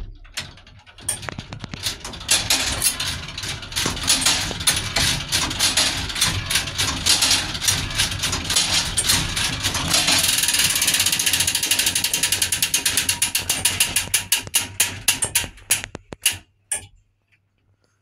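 Old iron tower clock movement running, its striking train released: gear wheels and pawls clatter in a rapid stream of metallic clicks that speeds up, then slows and stops near the end.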